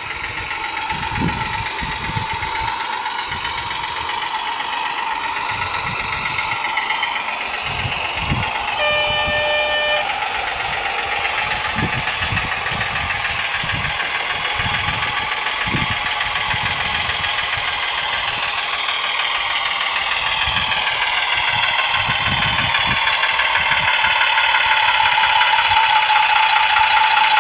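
Simulated diesel engine sound from the onboard sound module of a radio-controlled G-scale Goose model railcar, played through its small speaker as the model runs, its pitch drifting up and down. One horn blast of about a second comes about nine seconds in, and the sound grows louder towards the end.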